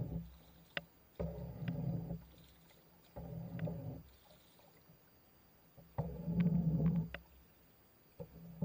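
Paddle strokes from a small boat, about four in all, each a low rumbling swish of water lasting about a second, a couple of seconds apart. Sharp short knocks come at the start of most strokes and in between. The paddle has a wooden shaft and a round plastic blade.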